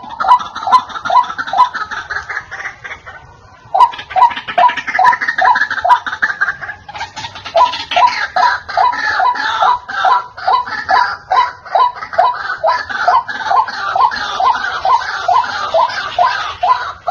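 White-breasted waterhen calling: loud, repeated harsh 'kru-ak' notes, about two to three a second. The calling pauses briefly about three and a half seconds in, then resumes faster and denser.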